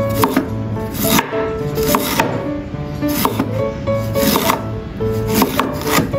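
A cleaver slicing fresh ginger on a wooden chopping board: regular knocks of the blade through the root onto the board, about once a second and often in quick pairs. Soft background music plays underneath.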